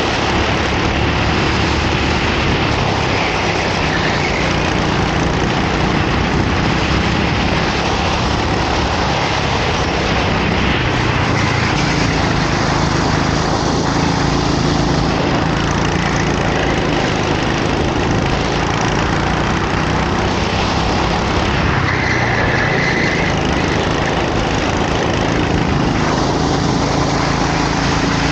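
Racing go-kart engine running at race pace, a loud steady drone under a dense rush of noise. The engine note shifts up and down a little as it goes.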